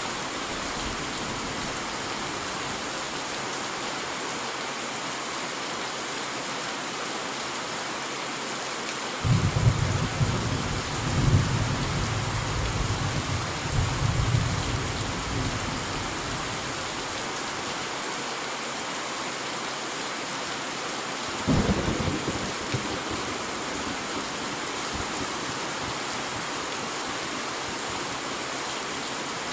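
Steady heavy rain with two peals of thunder: a long rolling rumble that starts about nine seconds in and swells several times over some seven seconds, then a sharper, shorter clap about twenty-one seconds in that dies away within two seconds.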